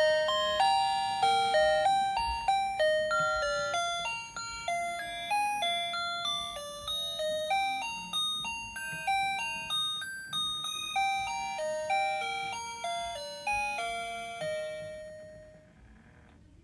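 Electronic sound chip of a Gemmy animated knitting teddy bear figure playing a tinkly chime tune, one bell-like note at a time, each note dying away. The tune gets gradually softer and stops near the end.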